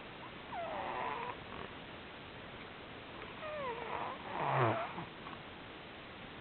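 Snowshoe Siamese cat snoring: two snoring breaths about three seconds apart, each with a squeaky, wavering whistle in the pitch. The second breath is the louder and ends in a low rumble.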